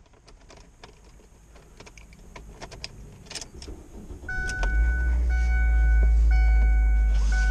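Keys clicking and jangling at the ignition of a Ford car, then about four seconds in the engine starts and settles into a steady low idle while a dashboard warning chime beeps repeatedly.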